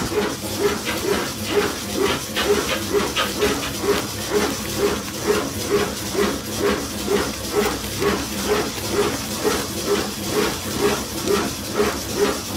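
A machine running at a steady pace, about two strokes a second, each stroke a knock with a hiss over it.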